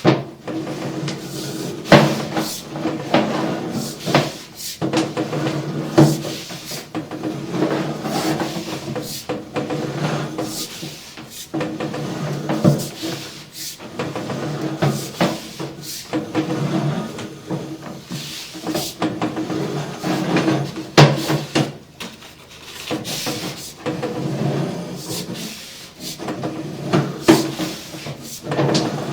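Sewer inspection camera and its push cable knocking and scraping inside the pipe as they are pushed along, with irregular knocks and rubbing over a steady low hum.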